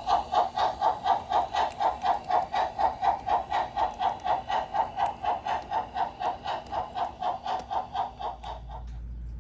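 Steam chuffing from the sound system of an LGB G-scale HSB Mallet locomotive model, an even beat of about four chuffs a second. The chuffs grow fainter and stop near the end, leaving a low steady hum.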